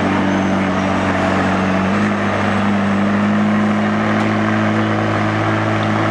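A car engine idling steadily over general background noise. Its pitch steps up slightly about two seconds in and then holds.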